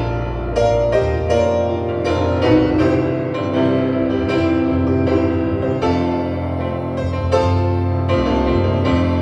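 Instrumental piano music: chords struck every half second to a second over held bass notes.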